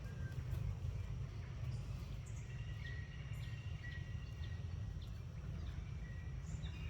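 Outdoor ambience: a steady low rumble like wind on the microphone, with faint, short, high chirps and brief thin whistles scattered throughout.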